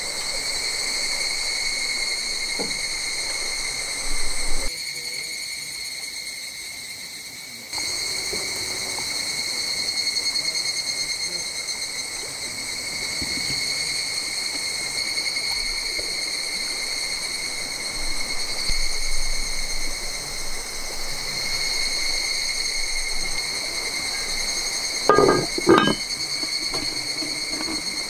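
Steady, high-pitched chorus of insects chirring without a break. Near the end come two short knocks, about half a second apart.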